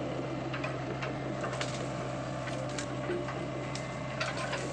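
Hydraulic excavator's diesel engine running at a steady idle, a continuous low hum, with scattered light clicks over it.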